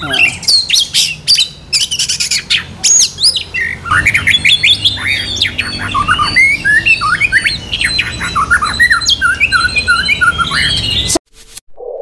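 Many caged songbirds calling at once: a dense, overlapping chorus of chirps, whistled sweeps and harsh squawks. It cuts off suddenly about eleven seconds in.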